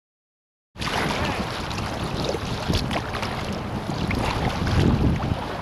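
Wind buffeting the action camera's microphone over choppy water slapping and splashing around a kayak, cutting in suddenly under a second in.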